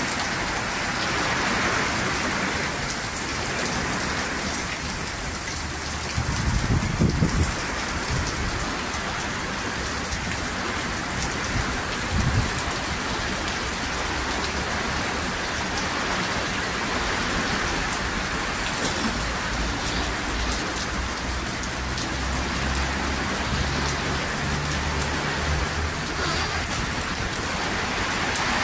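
Heavy cyclone rain pouring steadily, with low gusty rumbles about seven seconds in, again briefly around twelve seconds, and for a longer stretch near the end.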